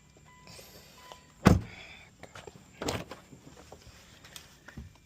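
Two sharp knocks about a second and a half apart, the first the loudest, with light clicks and rattles between them, from hands working on the car.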